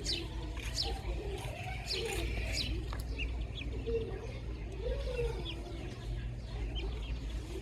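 Baby chicks peeping in short, high, falling chirps that repeat every half second or so, with lower, bending cooing calls from another bird underneath and a steady low hum.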